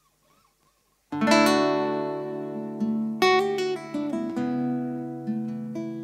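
Acoustic guitar opening an instrumental piece. After about a second of quiet, a strummed chord rings out, followed by a few more chords and plucked notes that are left to ring and slowly fade.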